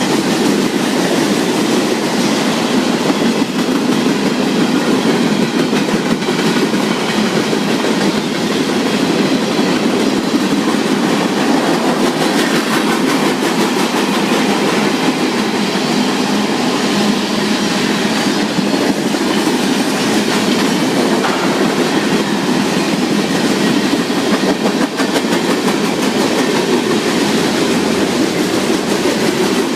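A freight train's cars rolling past at close range: a steady, loud noise of steel wheels on the rails that neither rises nor falls.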